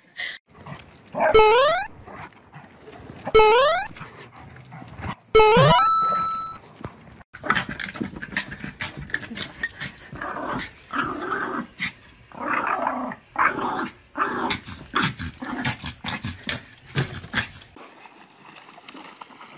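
Dog vocalising: three loud, short rising cries about two seconds apart, then about ten seconds of quick bursts of growling and barking.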